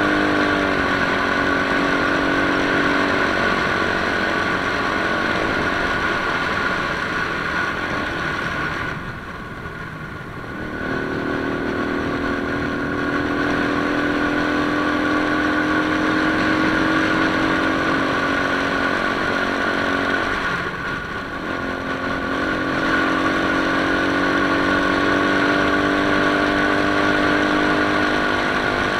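Motorcycle engine running while riding at road speed, with wind noise over the microphone. The engine eases off twice, about nine seconds in and again a little past twenty seconds, and then pulls again.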